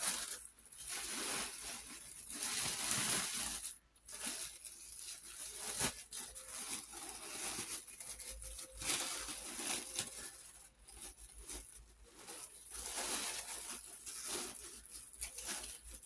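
Wrapping material rustling and crinkling in irregular spells as hands unwrap a doll, with a sharp click about six seconds in.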